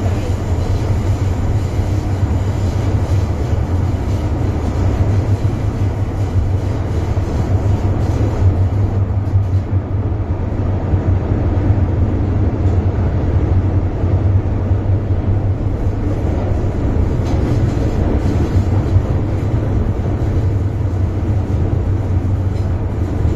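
A Metro-Cammell M-Train subway car on the MTR Island Line is running at speed, heard from inside the car at the doors. It makes a loud, steady low rumble: the strong "thunder" noise this ageing car gives off in service.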